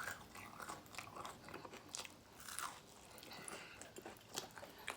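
A person chewing a hot Cheetos–crusted fried pickle close to the microphone: soft, irregular crunching and mouth sounds.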